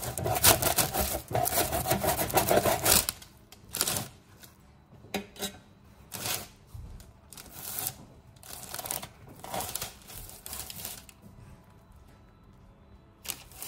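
A knife sawing through the crisp baked crust of a spinach strudel: a continuous scraping cut for about three seconds, then a series of short separate cuts.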